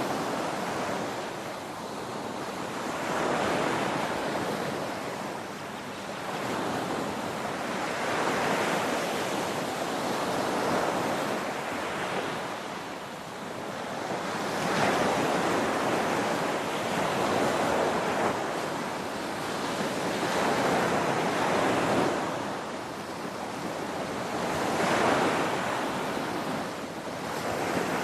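Ocean waves crashing: a continuous wash of surf that swells and fades every few seconds.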